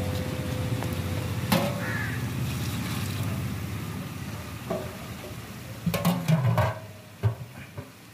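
Low steady rumble from a large biryani deg cooking over a wood fire, with a few single knocks and a short clatter of knocks about six seconds in. The rumble fades near the end.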